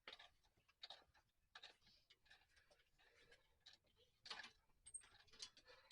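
Faint, irregular clicks and taps of a socket ratchet and hand tools while bolts are run in, against near silence.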